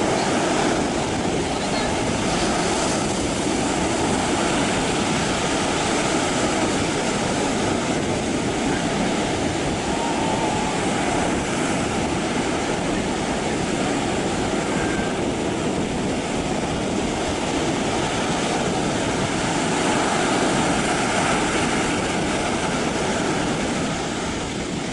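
Steady, unbroken noise of sea surf breaking on the shore.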